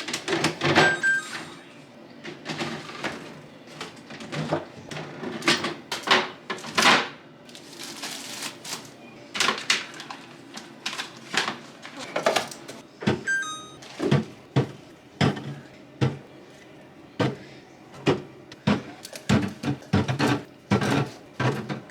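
Groceries being put away in a fridge and freezer: an uneven run of knocks, clunks and rustling packaging as containers and packs are handled and set down.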